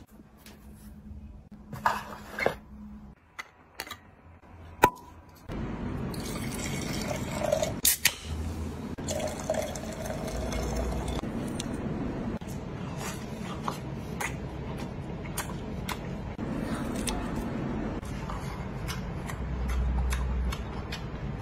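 A few knocks and clicks, then carbonated Sprite poured from a can into a wine glass of red wine, the liquid splashing and fizzing steadily.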